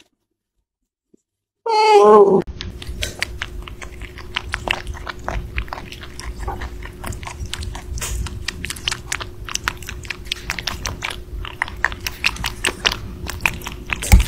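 A short, loud falling squeal about two seconds in, then a rabbit chewing cherry tomatoes: a quick, uneven run of small clicks over a faint steady hum.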